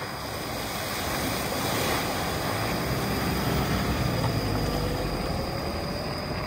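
Road and engine noise of a moving vehicle: a steady rumble that grows louder over the first couple of seconds and then holds.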